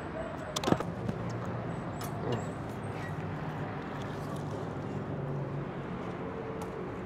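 Burning firewood logs knocking down into a clay pit oven, a few sharp knocks about a second in, over a steady background of street traffic.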